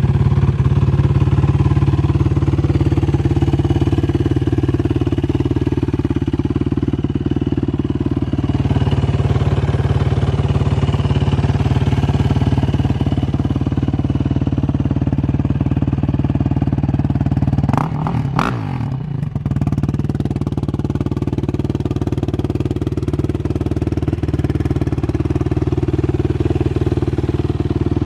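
Yamaha YFZ 450 ATV's single-cylinder four-stroke engine idling steadily, running smoothly on a freshly rebuilt top end that cured its knocking. A couple of clicks about two-thirds through.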